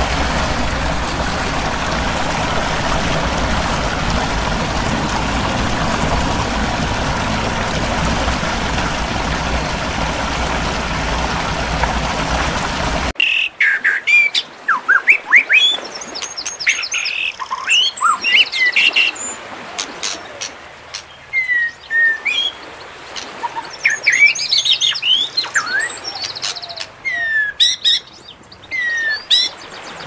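Waterfall rushing in a steady roar of water that cuts off abruptly about 13 seconds in, after which birds chirp and sing in quick, rising and falling calls, some clicks among them.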